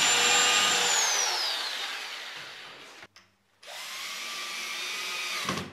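Corded electric drill boring a pilot hole in hard red thermowood: a steady motor whine that drops in pitch and fades away from about a second in as the drill spins down. After a short break, a cordless drill-driver runs steadily, driving a screw into the pre-drilled hole.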